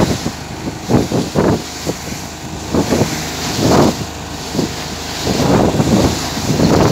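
Wind buffeting the microphone in uneven gusts aboard a small open fishing boat, with water sloshing against the hull.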